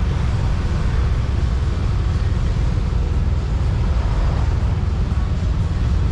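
Yamaha Aerox scooter riding along at a steady pace: its single-cylinder engine and wind buffeting the bike-mounted action camera's microphone make a steady, loud low rumble, with road and traffic noise above it.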